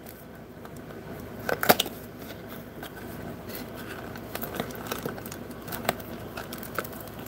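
Foil trading-card pack and cards being handled and opened: soft crinkling and rustling with a few sharp clicks, the loudest about a second and a half in.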